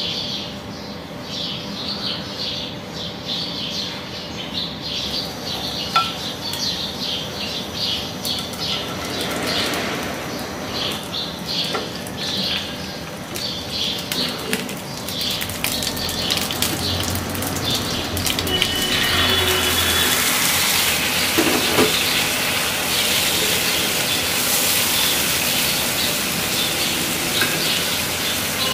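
Hot oil with whole spices sizzling in a frying pan, growing to a loud, steady hiss from about two-thirds in. Through the first half, a run of high bird-like chirps repeats in the background.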